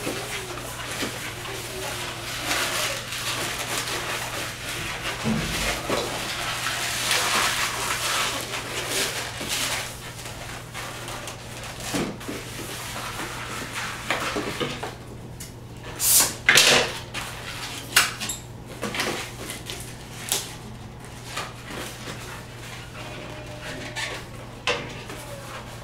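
Latex modelling balloons being worked by hand: for several seconds a rush of air-like noise, then a series of short, sharp rubbing squeaks and snaps as the balloons are twisted, with the loudest pair a little past the middle.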